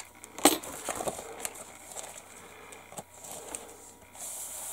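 Clear plastic bag crinkling and crackling as a decal sheet is slid out of it. There are scattered sharp crackles, the loudest about half a second in, and a rustling hiss near the end.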